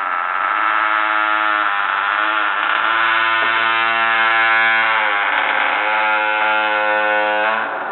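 A door creaking without a break, a harsh buzzing creak whose pitch sags and rises again several times.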